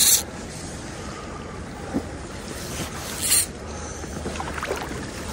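River current flowing steadily, with wind on the microphone. Twice, right at the start and about three seconds in, comes a short raspy hiss of fly line sliding through the rod guides.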